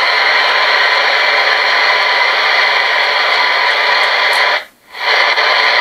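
Portable radio used as a ghost-hunting spirit box, playing loud, steady static hiss. The static cuts out for a split second about three-quarters of the way in, then comes back.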